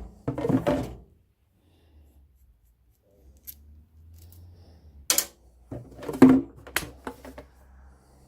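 Knocks and clatters of hands handling a plastic fuel tank and its pickup fitting during a test fit: a burst near the start, then another cluster about five to seven seconds in.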